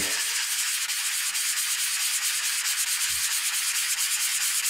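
A plastic six-sided die rubbed by hand on 1200-grit wet/dry sandpaper: a steady, even scratching hiss of fine grit on plastic, sanding the shiny finish down to a matte one.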